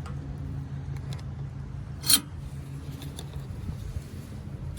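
A homemade sheet-metal skid plate knocks once, sharply, against the Corvette's underside while it is held in place for a test fit, over a steady low hum.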